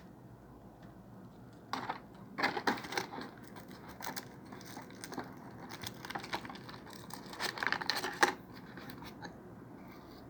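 Packaging and small accessories being handled: a busy run of crinkling, rustling and small clicks and knocks starts about two seconds in and stops about two seconds before the end.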